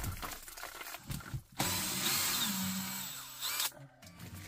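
Cordless drill running for about two seconds on a screw in the old filter's mounting bracket, its motor speed stepping down near the end; a few short knocks come before it.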